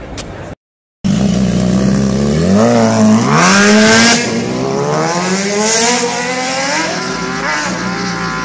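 Sport motorcycle engine accelerating hard away, its pitch climbing in several steps as it goes up through the gears. It is loudest about three to four seconds in.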